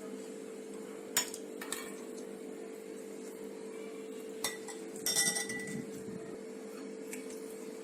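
Serving glasses with ice cubes clinking as they are handled and filled: single sharp clinks about a second and two seconds in, then a short run of clinks with a brief ring about five seconds in. A steady low hum runs underneath.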